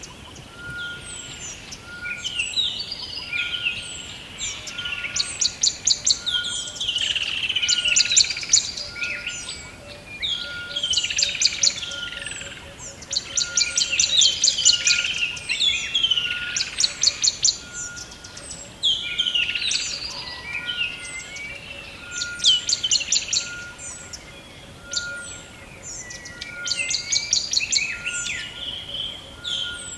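Several birds singing together in a dense forest chorus. Fast high trills come every second or two among many quick falling chirps, over a short steady note that repeats about once a second.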